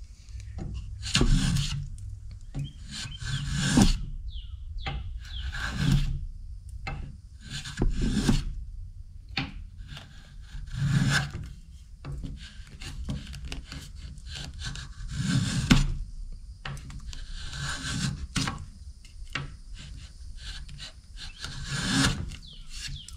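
Block plane shaving a round wooden staff toward its tapered end, pass after pass, with a scraping stroke every couple of seconds.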